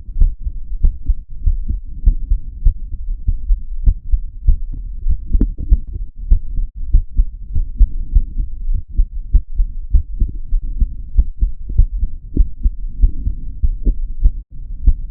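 A woman's heartbeat picked up by a microphone pressed against her chest inside her bra: a steady run of low thumps, with a low noisy rumble between the beats.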